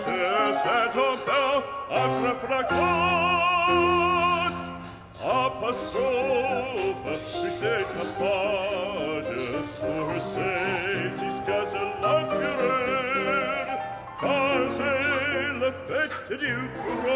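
Background music: operatic singing, long held notes with a wide vibrato, over an orchestral accompaniment.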